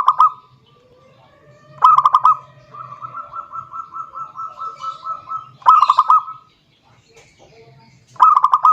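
Zebra dove (perkutut) cooing: four loud short rapid trilled phrases, about two to three seconds apart, with a softer, even run of pulsed coos between the second and third.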